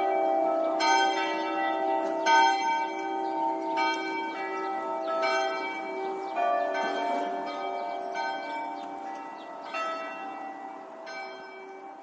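Church bells ringing, struck one after another about a second apart, with the hum of the bells carrying on beneath the strikes. The ringing grows gradually fainter toward the end.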